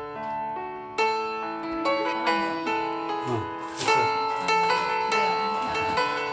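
Background piano music playing a melody.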